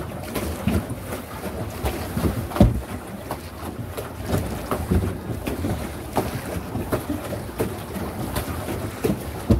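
Pedal boat under way on a lake: water churning and slapping against the plastic hull, with irregular knocks, the loudest about two and a half seconds in, and wind on the microphone.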